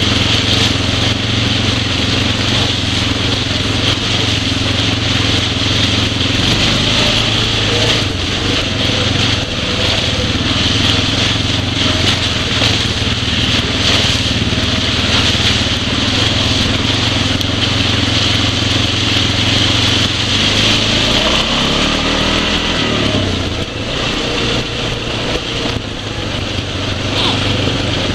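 ATV engine running steadily under riding, with a constant hiss of wind and trail noise; about three quarters of the way through, the engine's pitch dips and climbs as the throttle changes.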